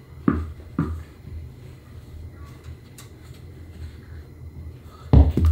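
Tennis balls thudding on gym surfaces: two dull thuds about half a second apart soon after the start, then a quick run of louder thuds near the end.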